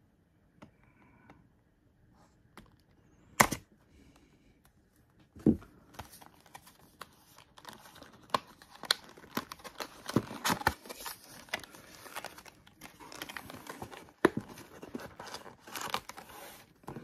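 Plastic wrapping on a trading-card hobby box crinkling and tearing as it is opened by hand. A quiet start with a couple of sharp clicks, then dense, rapid crackling from about six seconds in.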